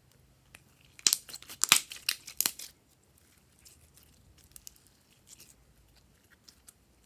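Glossy slime being worked by hand: about a second in comes a quick burst of crackling pops and clicks lasting nearly two seconds, followed by sparse, fainter pops.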